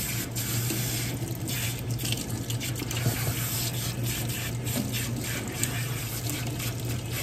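Water running from a handheld sink sprayer onto wet hair and splashing into a stainless steel sink as dye is rinsed out.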